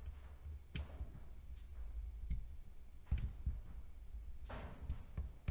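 Faint, scattered clicks of a hand screwdriver turning the small screws of a chainsaw carburetor being reassembled, with a brief scuff about four and a half seconds in.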